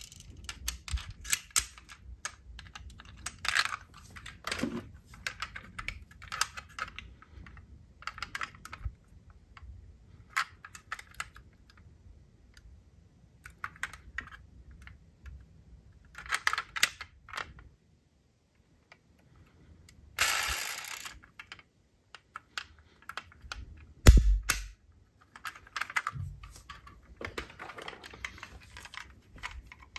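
Diecast metal model cars being handled: a scattered run of small clicks and clinks of metal and plastic. About twenty seconds in there is a second-long rustling rush, and a few seconds later a single low thump, the loudest sound.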